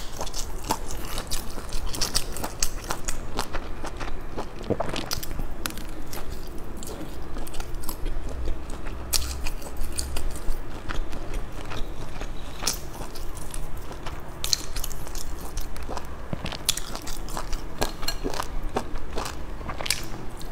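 Close-miked eating: a person biting into and chewing soft, spicy food slices pulled off bamboo skewers, with many irregular wet clicks and smacks of mouth and teeth.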